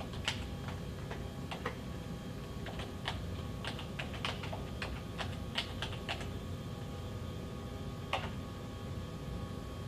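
Typing on a computer keyboard: scattered key clicks, a few a second, thinning out and stopping near the end, over a steady low hum.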